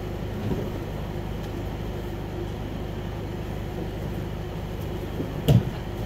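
Steady mechanical hum of the mat room, with one heavy thump about five and a half seconds in: a body landing on the mats during a takedown.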